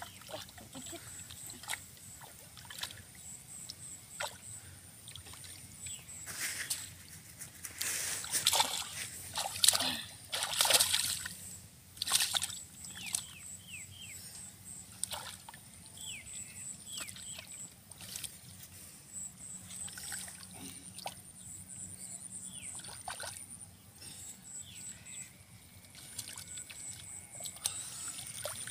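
Hands splashing and sloshing in shallow muddy water while groping for fish, in irregular bursts with the loudest cluster near the middle.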